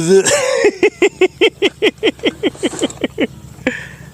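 A man's voice making a rapid run of about fifteen short syllables, each falling in pitch, that slow down over about three seconds.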